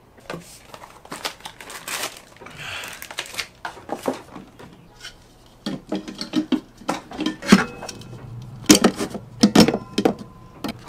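Hands handling an airbrush paint booth's case and fitting its plastic exhaust duct flange into place: a string of plastic clicks and knocks, with a rustling scrape about two to three seconds in as the case is turned over. The sharpest knocks come in a cluster from about seven and a half seconds on, as the duct is pushed home.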